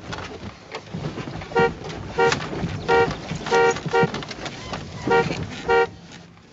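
Car horn sounding in seven short, unevenly spaced honks as the driver's chest bumps against the steering wheel.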